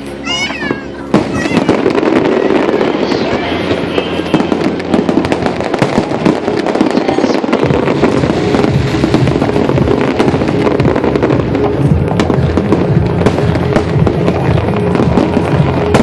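Aerial fireworks show: shrill wavering whistles in the first second, a sharp bang about a second in, then a dense, continuous barrage of bursts and crackling.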